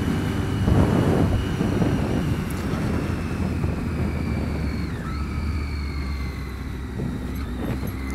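Triumph Street Triple's three-cylinder engine running steadily on the move, mixed with wind rush on the camera microphone. A faint high whine slowly falls in pitch, dipping briefly about five seconds in.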